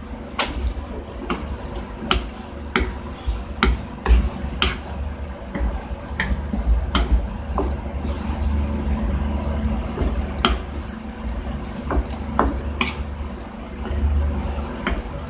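Thick tomato stew simmering and being stirred with a wooden spatula in a frying pan: irregular sharp pops and clicks from bubbles bursting in the sauce and the spatula against the pan, over a wet bubbling sound.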